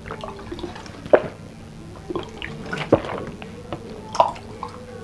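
A person drinking from a plastic water bottle: irregular gulps and glugs of water, louder a little after one second, near three seconds and a little after four seconds.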